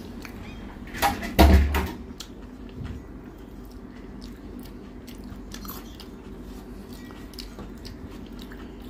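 Close-miked chewing of a mouthful of rice and mutton curry, with small wet mouth clicks. A louder short thump-like bite comes about a second and a half in. A faint steady hum runs underneath.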